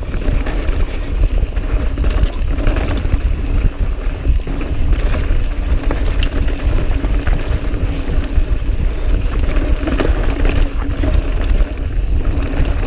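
Mountain bike descending dusty, rocky singletrack: tyres running over dirt and rock, the bike clattering with quick clicks and rattles over the bumps, over a steady wind rumble on the camera microphone.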